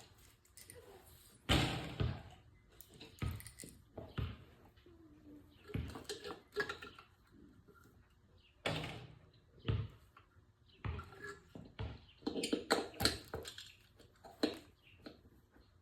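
Irregular knocks, clicks and clanks of metal parts and tools being handled while engine mount bolts and spacers are tried on a small motorcycle frame.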